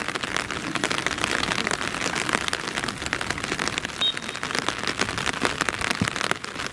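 Rain pattering close to the microphone: a dense, steady crackle of many small drop hits.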